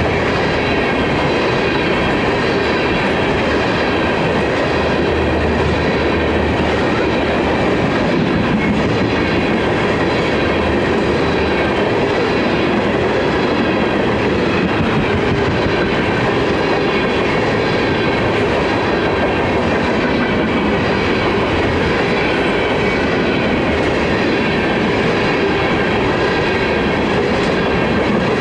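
Freight train tank cars rolling past at steady speed: continuous, loud wheel-on-rail noise. A few thin, steady high-pitched ringing tones run over it.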